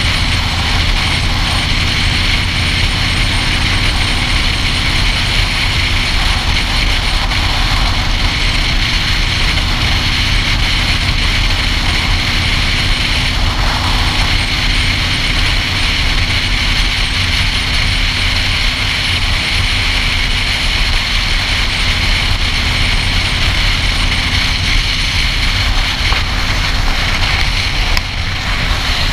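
Motorcycle riding at motorway speed, heard from a GoPro mounted on the bike: a steady roar of wind and road noise with the engine running underneath. Near the end the noise dips briefly with a knock as the camera is handled.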